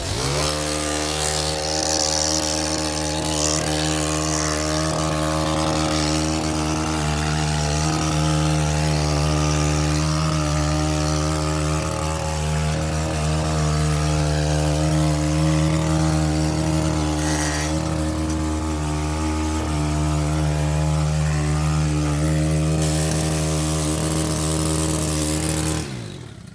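Stihl KM 131R KombiEngine with an edger attachment, started on choke: the engine catches right at the start and runs at a steady high speed, then drops away sharply near the end.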